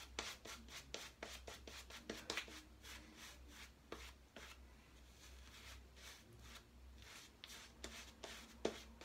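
PAA Peregrino shaving brush working shaving lather onto a bearded face: a faint run of quick, soft rubbing strokes.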